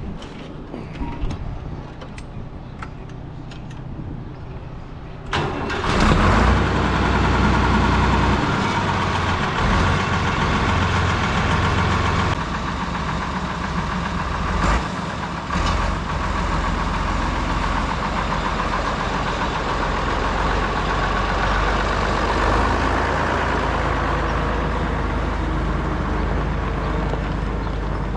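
Deutz D130 06 tractor's diesel engine. A few faint clicks come first, then the engine noise comes in suddenly about five seconds in and runs steadily after that.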